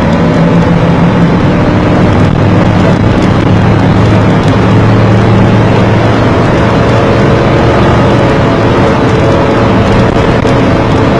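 Motor vehicle engine running steadily under road and wind noise while driving, a continuous drone whose pitch settles a little lower about three seconds in.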